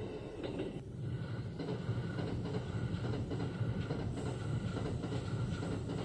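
Kintetsu electric train passing over a level crossing: a steady rumble with repeated clatter of wheels over the rails, and the crossing's warning bell ringing.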